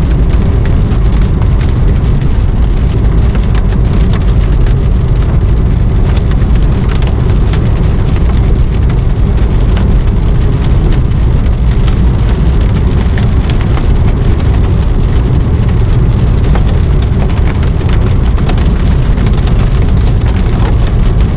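Rain and hail pelting a vehicle's roof, heard from inside the vehicle: a steady loud downpour with scattered sharper hits.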